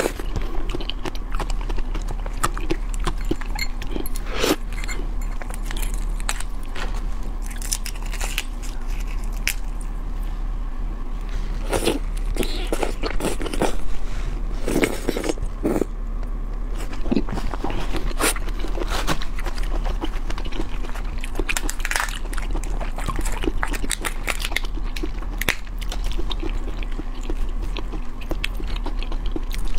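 Close-miked chewing, sucking and slurping on cooked red prawns, with irregular crackles and clicks as the shells are cracked and peeled apart by hand.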